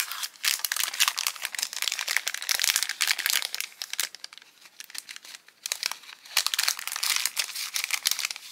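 Clear plastic cellophane sticker packet crinkling as it is handled by hand: a dense run of sharp crackles with brief lulls.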